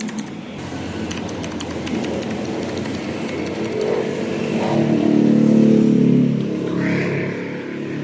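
A motor vehicle engine passing by, swelling to a peak about two-thirds of the way through and then fading. A few mechanical keyboard key clicks sound in the first seconds.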